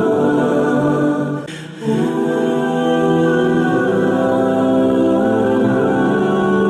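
Background music of wordless, choir-like vocals holding long sustained chords, briefly dipping in level about a second and a half in.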